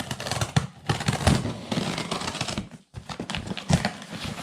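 Cardboard package being cut open with a knife and pulled apart: irregular crackling and scraping of packing tape and cardboard, with a brief pause about three seconds in.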